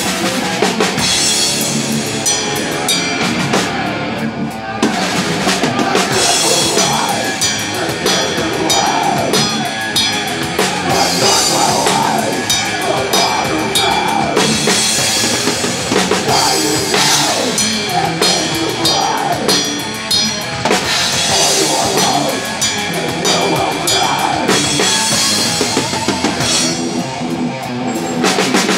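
Death metal band playing live, with the drum kit loud and close: bass drum, snare and cymbals driving the song over the rest of the band.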